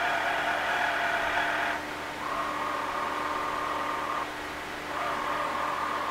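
Motorized magnet carriage under the Excalibur Phantom Force chess board whining as it moves a piece by itself, in three runs: one that stops about two seconds in, then a steadier, lower whine for about two seconds, and another starting about five seconds in.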